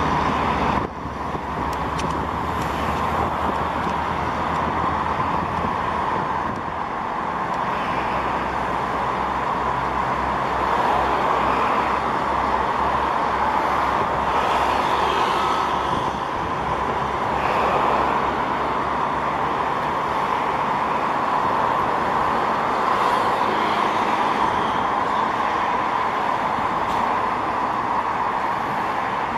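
Taiwan High Speed Rail 700T trainset rolling slowly out of the depot, a steady running noise with no distinct rise or fall.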